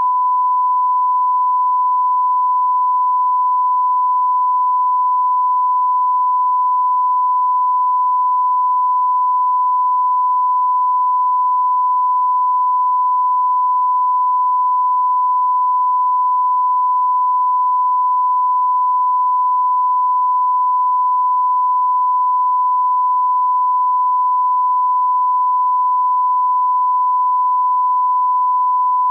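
Steady 1 kHz reference test tone, a single unbroken pitch held at constant level, played with colour bars as the line-up signal for setting audio levels.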